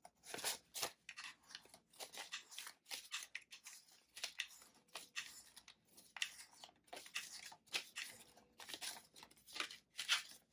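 Paper banknotes rustling and crinkling as they are pulled by hand from a cash binder's clear plastic pockets. The sound is a steady run of quick, irregular rustles.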